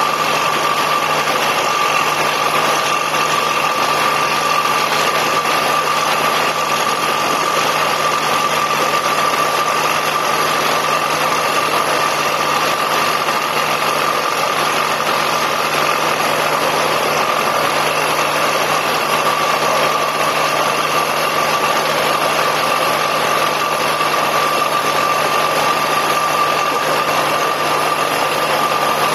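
Borewell drilling rig running steadily: a loud, dense machine noise with a steady high whine through it.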